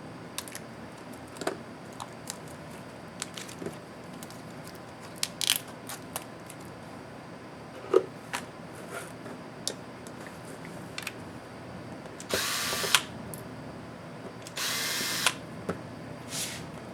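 Two short runs of a small power screwdriver on laptop screws, each under a second, amid scattered clicks and taps of small plastic and metal parts being handled.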